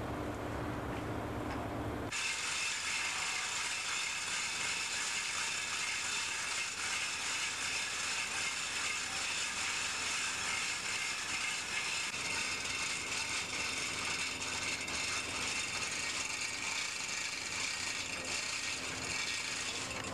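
A steady, high-pitched mechanical noise starts suddenly about two seconds in, over a low hum.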